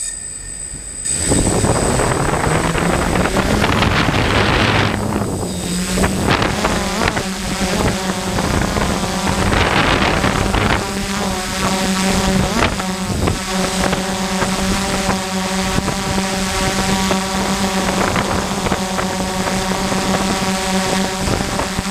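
DJI F550 hexacopter's six motors and propellers spinning up and lifting off: a hum that climbs in pitch over the first few seconds, then settles into a steady buzz, with a few swells of wind noise on the drone's onboard microphone.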